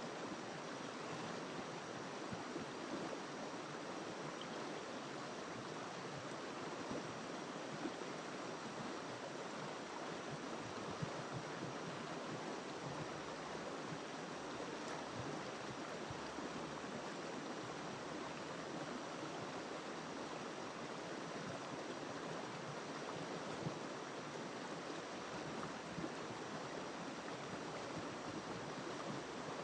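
River water flowing over rocks, with a steady rushing sound.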